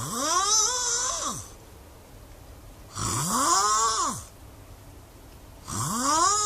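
A sleeping person snoring loudly, three snores about three seconds apart. Each snore is a pitched tone that rises and then falls, over a breathy hiss.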